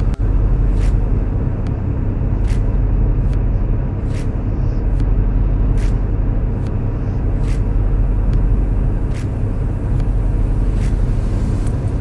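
Steady low rumble of a truck on the road, with faint light clicks coming a little more than once a second.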